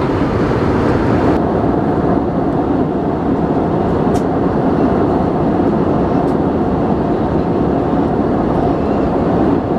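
Steady in-flight cabin noise of an Airbus A319 airliner: an even rush of airflow and engines. A higher hiss drops out about a second and a half in, and there are a few faint ticks.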